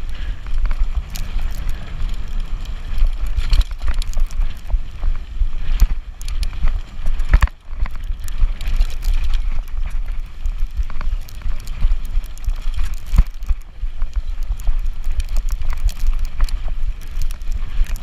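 E-bike ridden fast over a rough dirt trail: a rumble of wind and riding noise on the microphone, with frequent clicks and rattles as the bike jolts over bumps.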